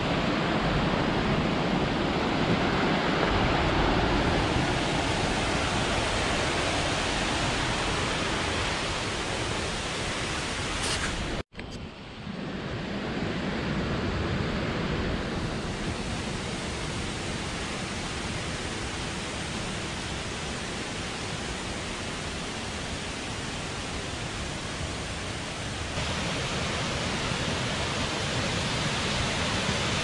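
Steady rushing of a tall waterfall, an even wash of falling water with no other distinct sounds; it cuts out for an instant about eleven seconds in, then resumes.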